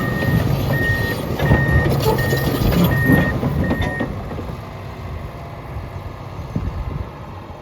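Komatsu D65EX-18 bulldozer's reverse alarm beeping steadily, about six evenly spaced beeps that stop about four seconds in, over the dozer's diesel engine and running gear. The machine noise drops off after the beeping stops.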